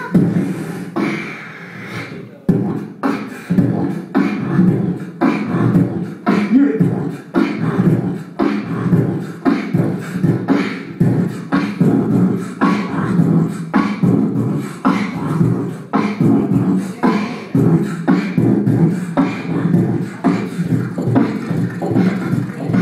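Beatboxing into a handheld microphone: a low hummed bass line under an even rhythm of sharp kick- and snare-like mouth clicks, with the beat starting about two and a half seconds in.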